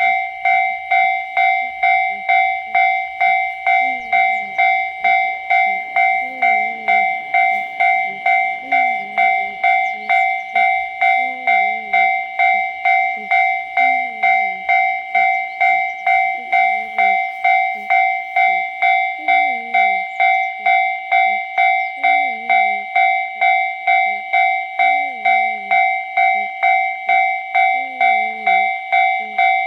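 Japanese railway level crossing alarm bell starting suddenly and ringing its steady "kan-kan" warning, just under two strikes a second, signalling that a train is approaching and the crossing is closing.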